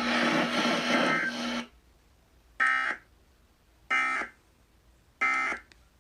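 Emergency Alert System end-of-message signal: three short, shrill digital data bursts about 1.3 seconds apart, the SAME "NNNN" code that closes a broadcast alert. Before them, broadcast static with a low hum cuts off under two seconds in.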